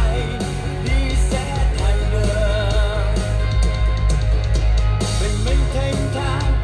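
Pop song with guitar, drums and strong bass, played back on a Harman Kardon Onyx Studio 8 portable Bluetooth speaker as a sound test.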